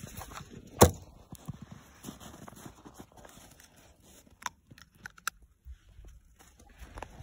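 Dog biting and crunching a piece of ice held in a hand: one sharp crack about a second in, then scattered smaller crunches and clicks.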